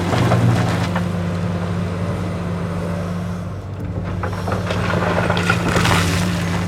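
Komatsu PC450LC-7 excavator's diesel engine running steadily under load, with gravel clattering and scraping from about four to six and a half seconds in.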